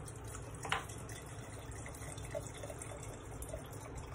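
Vodka trickling from an upturned bottle into a glass mason jar as the jar is filled, with one sharp click about a second in and faint little gurgles later on.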